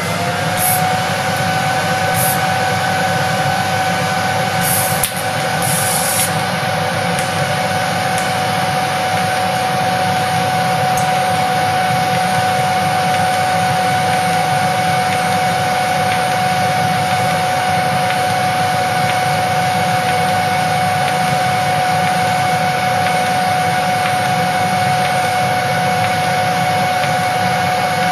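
TIG welding with an inverter welder: a steady whining hum with one constant high tone over a low noise. A few brief crackles come in the first six seconds.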